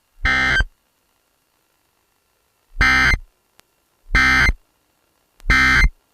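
Four short bursts of harsh, buzzy digital data tones, each about half a second long, with silence between. The last three come about a second apart, the pattern of EAS SAME data bursts that close an alert.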